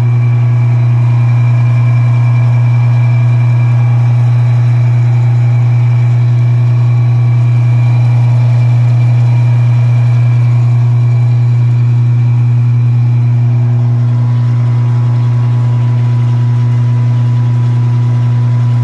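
5-horsepower electric motor running steadily and turning a countershaft: a loud, even hum with a fainter steady whine above it.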